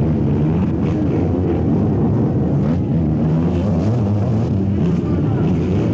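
Several four-stroke sidecar motocross engines running hard at race speed, their pitch rising and falling as the machines accelerate and back off.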